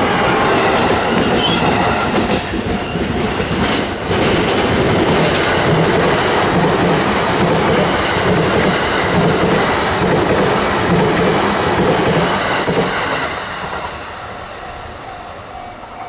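An E233 series electric commuter train rolls past a level crossing, followed by an E353 series limited express on the far track, with wheels running over the rails and some wheel squeal. The train noise fades after about 14 s, leaving a steady ringing tone that is typical of the crossing's warning bell, still sounding with the lights on.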